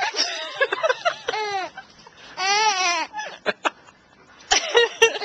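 A young baby giggling in several short bursts, with a woman laughing along.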